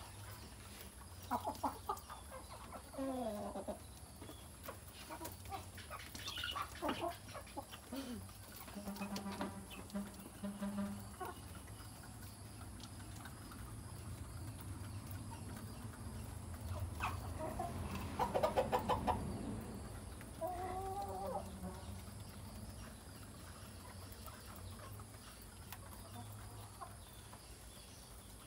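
A flock of hens and roosters clucking and calling while they feed, with short calls scattered throughout and a louder burst of calls a little past the middle.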